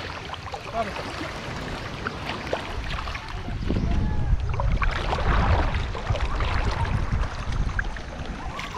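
Shallow seawater sloshing and lapping around people wading waist-deep, with a low rumble of wind on the microphone that swells in the middle.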